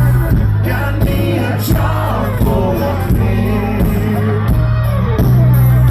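Live country-rock band playing loudly through a concert sound system, with a heavy bass and no lead vocal line in the words.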